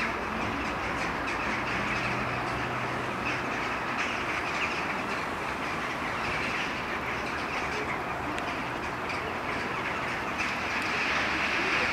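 A large flock of jackdaws calling together at the roost: a dense chatter of many overlapping short calls that grows louder near the end.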